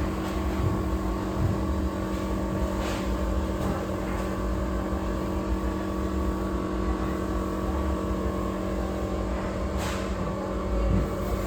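Laser welding machine running with a steady hum of several fixed tones over a low rumble, with short hisses about three and ten seconds in.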